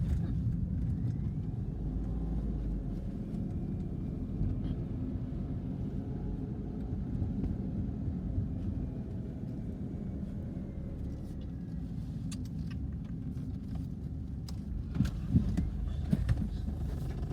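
A steady low vehicle rumble, with no train horn sounding.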